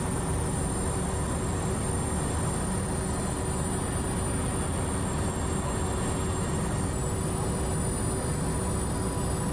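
A steady low rumble of running machinery, with a few faint steady hum tones over it, including a thin high whine.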